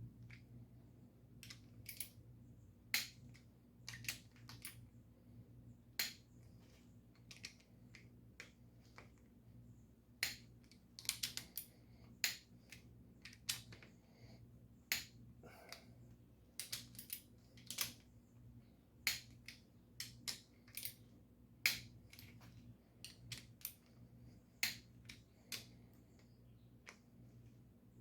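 Torque wrench ratcheting and clicking as small-block Chevy cylinder head bolts are tightened one after another in the torque sequence, at the 45 ft-lb step: sharp irregular clicks, some in quick clusters, over a faint steady hum.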